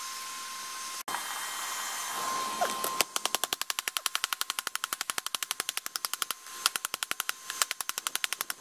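Hand hammer striking a hot 5160 high-carbon steel blade on an improvised steel anvil: a fast, even run of sharp ringing blows starting about three seconds in, broken by a few short pauses.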